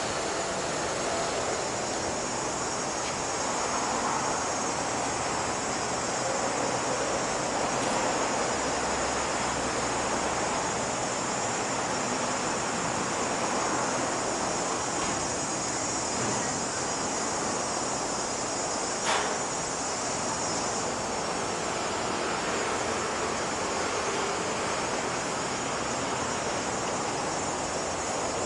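Steady outdoor ambience: a high, continuous insect chorus over the hum of traffic on the elevated road overhead. A single sharp click about two-thirds of the way through.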